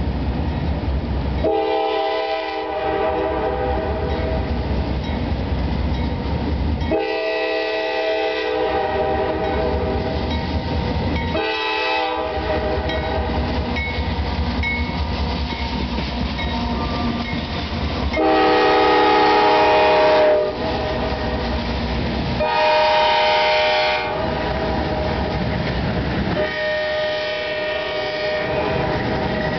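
Air horn on a CSX GE AC4400CW freight locomotive sounding six blasts: two long, one short, then three more long ones, the fourth and fifth loudest. Under the horn, the diesel locomotives and the train's wheels give a steady rumble with some clickety-clack on the rails.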